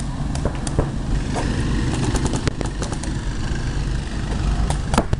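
Paintball markers firing: scattered sharp pops at irregular intervals, a few close together near the end, over a steady low rumble.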